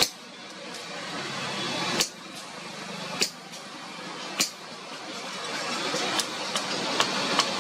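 Hammer striking hot iron on an anvil while horseshoes are forged: a few sharp blows more than a second apart, then a quicker run of lighter taps, over a steady hum of street traffic.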